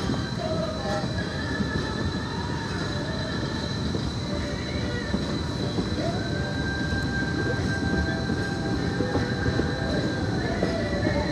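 A narrow-gauge train is rolling along the track, heard from on board as a steady rumble and rattle of the cars. A thin, high wheel squeal rides over it for a few seconds in the middle.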